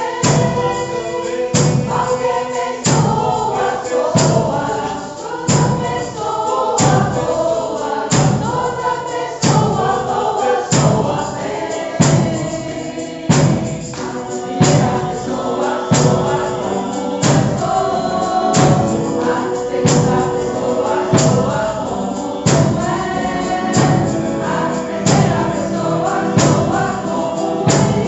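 A group of voices singing a song together over percussion, whose strokes keep a steady beat of about one a second.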